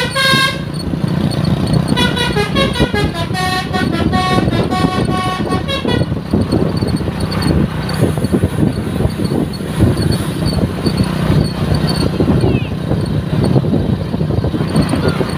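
A bus's 'telolet' musical horn plays a quick run of stepped notes, stopping just after the start and playing again for about four seconds. A steady, noisy rumble of traffic follows for the rest of the time.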